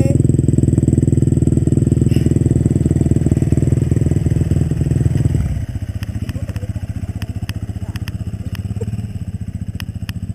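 Dirt bike engine running close by at a steady, unchanging pitch, dropping to a noticeably quieter level just past halfway. A few faint clicks in the second half.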